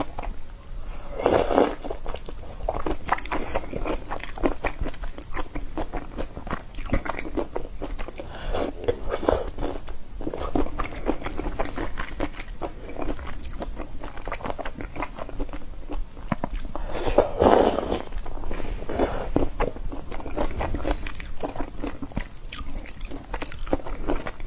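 Close-miked eating of whole shell-on shrimp in spicy sauce: irregular crisp crunching of shells and chewing. Louder crunching about a second in and again about two-thirds of the way through.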